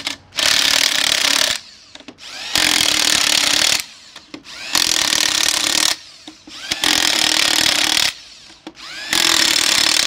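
Impact wrench hammering lug nuts onto a car wheel in five separate bursts of about a second each, one nut at a time, tightening the five-nut wheel in a star pattern.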